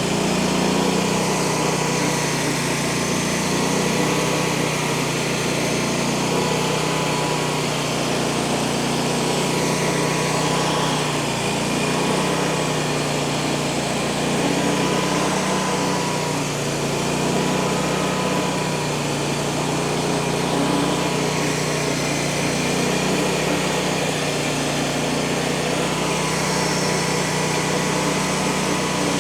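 Small gas engine of a Frontier OS35 portable bandsaw mill running steadily under load, with a wavering whine, as the band blade cuts through a large log.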